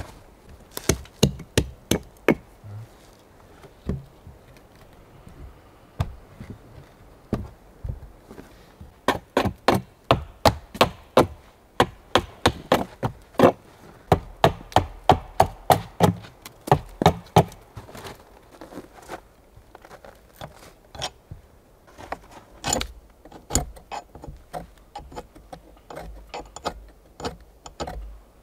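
Hammer blows on a wooden plank door: sharp knocks, single ones at first, then quick runs of two or three strikes a second, as the door is nailed together and its hardware fixed.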